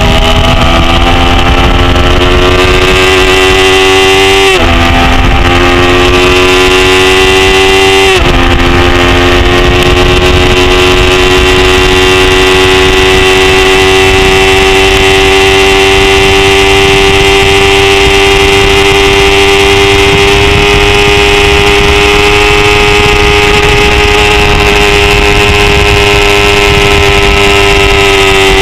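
A 250 cc production race motorcycle engine at high revs, heard from an onboard camera: it climbs in pitch with two quick upshifts about four and a half and eight seconds in, then holds steady high revs, over a rush of wind on the microphone.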